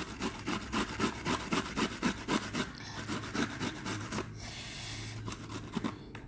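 Belimbing fruit being grated on a hand grater: quick, even rasping strokes about five a second, with one longer steady rasp about four seconds in.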